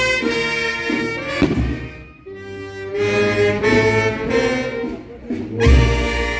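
Live music from a Peruvian fiesta band (banda orquesta): a melody in long held notes, with deep drum beats, the heaviest near the end.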